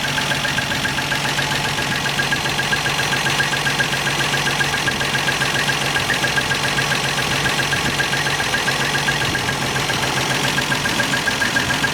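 Freshly rebuilt 1963 Rambler American six-cylinder engine idling steadily on its first run after the rebuild, with a light, rapid, even ticking over the hum.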